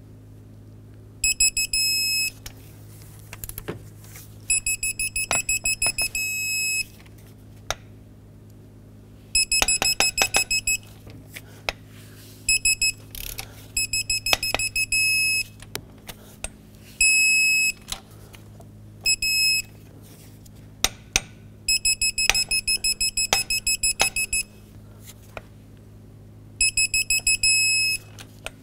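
A digital torque wrench beeps rapidly as each cylinder head bolt comes up to its setting, then gives a steady tone of about a second when the target is reached. This repeats for about nine bolts in turn. Between the beeps come sharp creaks and cracks from the head bolts turning under load, which are normal during this torquing.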